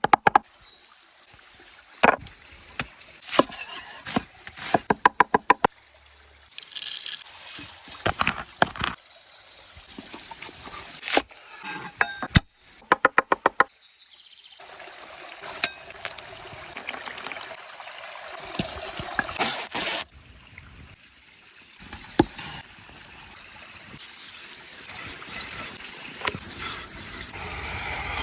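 Runs of rapid sharp knocks, about ten a second, and single knocks, then from about halfway a steady trickling water sound.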